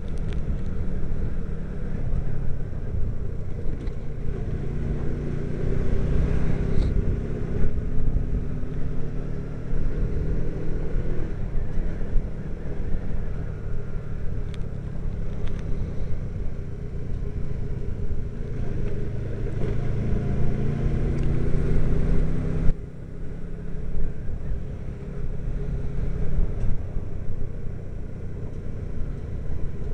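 Motorcycle engine running under way, heard from the bike itself. Its pitch climbs twice as the rider accelerates. About three-quarters of the way through it drops off suddenly as the throttle is closed.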